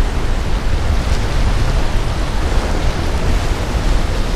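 Steady wind buffeting the microphone over the rush of surf and moving water.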